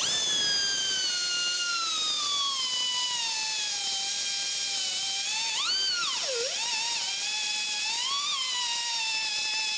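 Air-powered die grinder whining as its burr grinds excess braze out of a cast iron socket. The pitch sags as the burr bites under load, with a sharp dip about six seconds in and another near the end, each time recovering.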